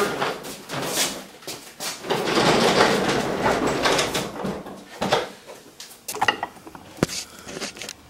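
A plywood machine cart on casters rolling across the shop floor, then several sharp knocks and clicks as it bumps into place against the wall.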